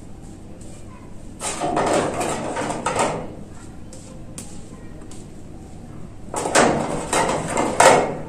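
Two spells of rustling and scraping, each about a second and a half long, as hands work a thick, wet hair pack through long hair.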